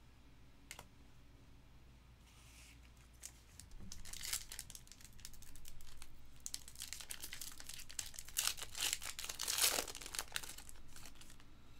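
A foil trading-card pack wrapper being torn open and crinkled as the cards are pulled out. It starts about four seconds in, with the loudest crinkling near the end.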